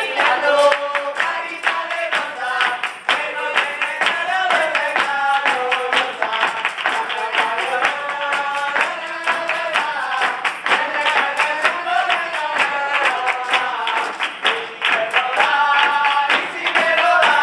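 A group of flamenco dancers singing a Spanish Christmas carol (villancico) together, with fast, sharp rhythmic percussion strikes running under the singing throughout.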